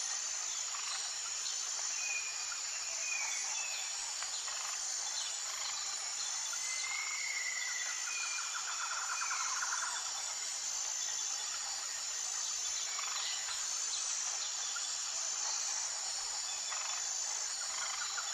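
Jungle ambience: a steady high-pitched insect chorus throughout, with a few short bird whistles a few seconds in and a rapid pulsing trill about halfway through and again at the end.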